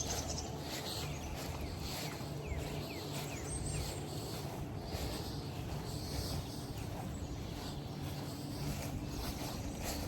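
Outdoor ambience: a steady low hum under faint high hissing, with a few short bird chirps a few seconds in.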